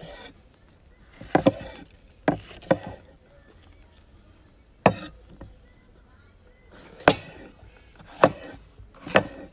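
A large wide-bladed knife cutting bell peppers and striking a wooden cutting board: sharp chopping knocks, about seven of them at irregular intervals.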